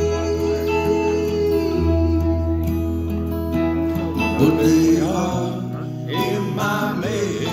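Live country band playing an instrumental break: acoustic guitar strumming under an electric guitar lead of long held, bending notes, over a steady low bass line.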